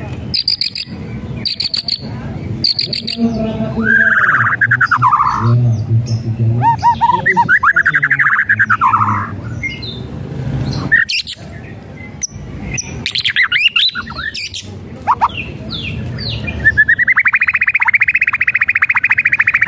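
White-rumped shama singing: a few sharp clicking rattles, then loud whistled phrases with fast warbles, and near the end a long rapid trill held on one pitch. These are the rattling 'kretekan' calls and whistles that shama keepers hear as a sign of high agitation.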